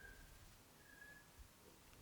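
Near silence: faint room tone with two brief, faint high steady tones, one at the start and one about a second in, and a soft low knock shortly after.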